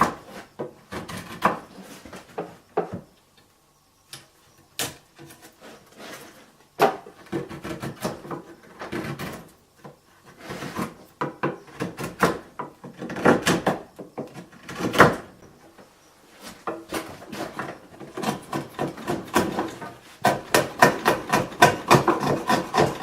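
Wood chisel cutting out a groove in a treated 2x4: irregular sharp knocks and scraping as wood is chopped and pared away, quickening into a rapid run of strikes near the end.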